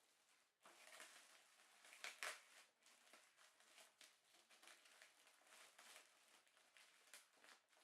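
Faint rustling and light clicks of packaging being handled while a UPS is unboxed, louder briefly about two seconds in.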